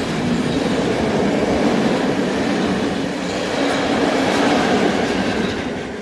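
Freight train of open-top gondola wagons rolling past on the rails, a steady rumble with rattling and clickety-clack of the wheels. The last wagon goes by near the end and the noise starts to fade.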